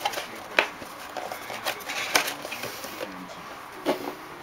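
Small sharp clicks and taps with light rustling in between, three of them louder than the rest, like objects being handled on a desk.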